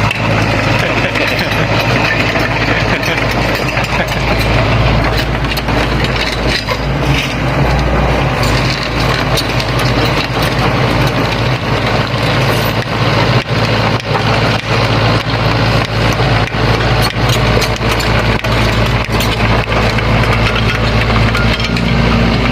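Sany hydraulic excavator's diesel engine running steadily, with many short knocks and scrapes of stones under the bucket as it levels stony ground.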